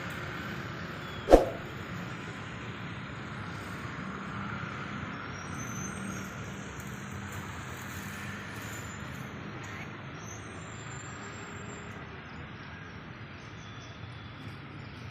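Steady rumble of engines and traffic with a low hum, broken by a single sharp clank about a second in.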